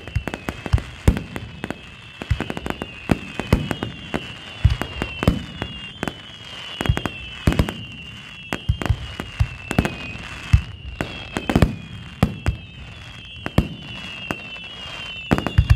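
Aerial firework shells bursting in irregular succession: sharp bangs, sometimes several within a second, with a high falling tone repeating steadily in the background.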